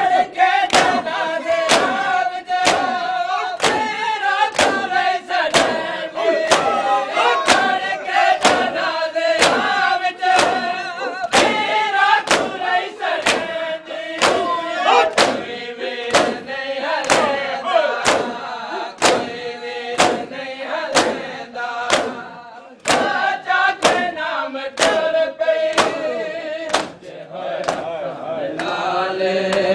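A group of men chanting a noha, a Shia mourning lament, in chorus, with matam: their hands strike their chests together in a steady beat, about three strikes every two seconds.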